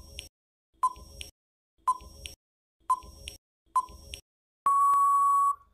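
Quiz countdown timer sound effect: five short beeping ticks about a second apart, then one long steady beep lasting about a second that marks the end of the answer time.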